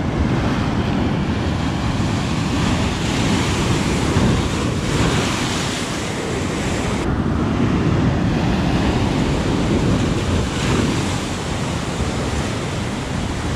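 Shore-break waves surging over a rock shelf and draining back as foaming white water, a steady rush that swells and eases, with wind buffeting the microphone.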